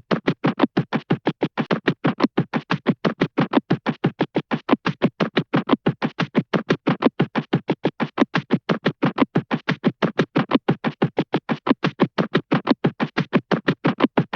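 Hanna-Barbera cartoon sound effect: a rapid, even pulsing at about five pulses a second, unchanged throughout.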